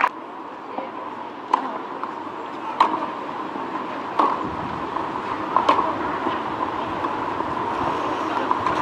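Tennis ball bounced and struck by rackets on a clay court: a handful of sharp single pops, roughly one every second and a half. A faint steady tone and background hum run underneath.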